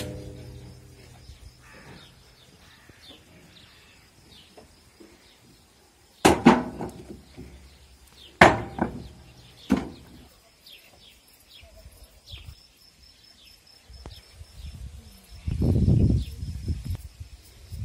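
Stones striking the steel bed of a farm trailer: three sharp clangs with a brief ring, a few seconds apart, then a longer, louder noise near the end. Birds chirp throughout.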